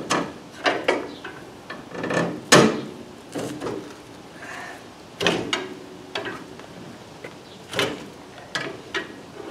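A pry bar knocking and scraping against a car's front suspension as the lower control arm, loaded with a compressed coil spring, is levered past the sway bar. It comes as a run of irregular clanks, the loudest about two and a half seconds in.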